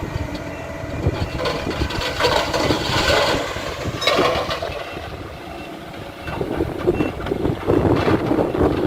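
Engine of heavy earthmoving machinery running, with irregular clattering and knocking over a dense mechanical noise.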